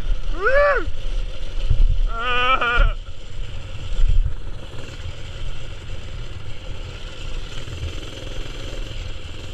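Mini-bike rolling down a rough dirt mountain trail: continuous rumble of wind and tyre noise with low jolting thuds. Two short high calls come about half a second in and again around two seconds in.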